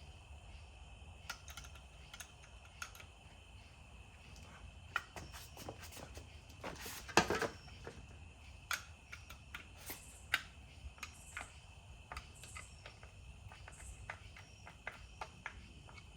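Screws being tightened with a hand screwdriver into a trolling-motor quick release bracket: scattered small clicks and knocks, with one louder knock about seven seconds in.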